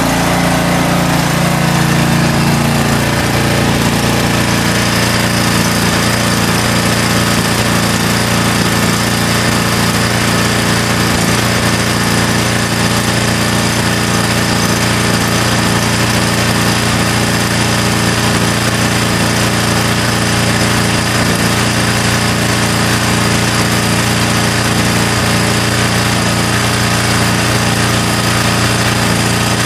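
Small four-stroke engine of a Toro TimeMaster walk-behind lawn mower running steadily at a constant speed. Its pitch settles in the first couple of seconds and then holds.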